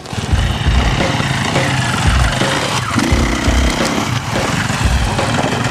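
Off-road motorcycle engine running steadily while riding along a dirt track.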